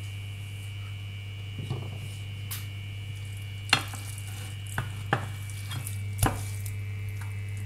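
A handful of short knocks and scrapes as a wooden spatula pushes raw beef off a plastic tray into an oiled nonstick frying pan, over a steady electrical hum with a faint high whine.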